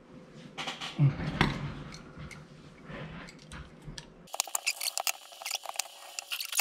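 Razor-blade utility knife scraping and cutting along the edge of an adhesive-backed magnetic bed sheet, trimming off the overhang. A couple of knocks from handling the knife and plate come about a second in. From about four seconds in there is a rapid run of crackly, scratchy cutting strokes.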